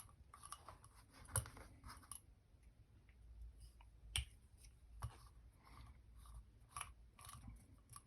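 Faint clicks and light metal scrapes of a small hand tool turning out the cylinder-head screws of a model engine, with a few sharper ticks of parts being handled.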